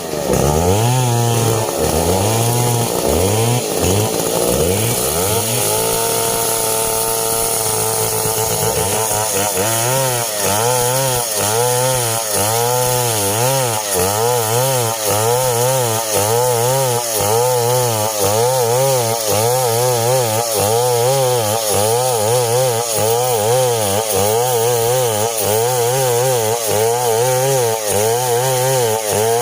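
Two-stroke STIHL chainsaw running hard while cutting coconut-palm timber. The engine pitch swings up and down, holds steady for a few seconds, then from about nine seconds in rises and falls evenly about once a second as the saw loads and frees in the cut.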